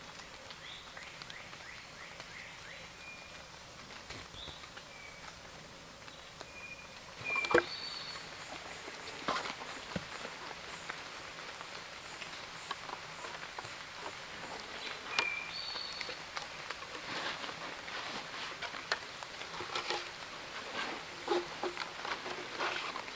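Hands handling cord and small wooden logs: rustling, scraping and a run of clicks and knocks, starting with one sharp knock about seven seconds in. A few short high bird chirps sound over the quiet woodland background.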